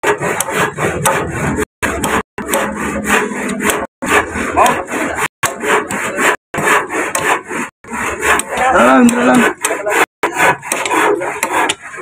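Green nylon string line being pulled taut and wound around a wooden stake by gloved hands: rough rubbing and scraping of string on wood. The sound cuts out for a split second several times.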